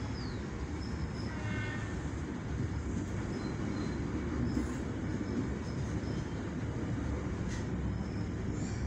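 Commuter Line Bandung Raya train running along the track, a steady rumble of wheels on rails, with a brief faint squeal about a second and a half in.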